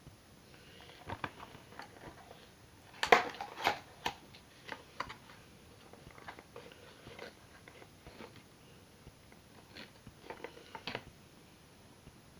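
Hair-dye kit packaging being handled and opened: scattered clicks, taps and rustles of the cardboard box and plastic contents, loudest about three to four seconds in, with a few more near the end.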